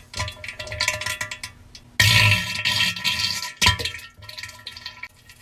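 A comedy diarrhea sound effect of wet sputtering and splattering in irregular bursts. The loudest burst starts suddenly about two seconds in and lasts about a second and a half.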